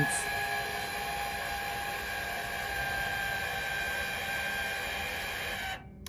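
Electric lift motor of a remote control lawn mower raising or lowering the cutting deck: a steady whine of several fixed tones that cuts off abruptly near the end.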